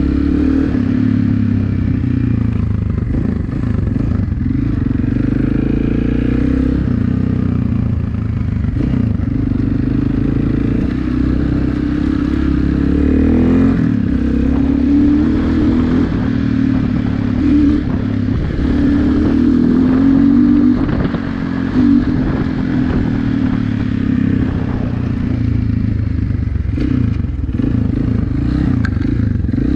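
Motorcycle engine running as the bike rides slowly over a sandy dirt track, the revs rising and falling with the throttle.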